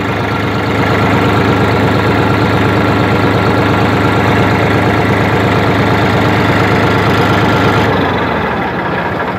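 A Massey Ferguson 2605 tractor's diesel engine idling steadily, running on with the ignition key pulled out, since this mechanical diesel needs the battery only to start. Near the end it winds down and stops.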